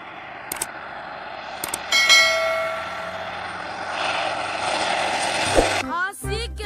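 Single-engine propeller floatplane landing on water: engine and propeller running, with a brief whine starting sharply about two seconds in. The sound swells into a louder hiss about four seconds in, as the floats touch down and throw spray.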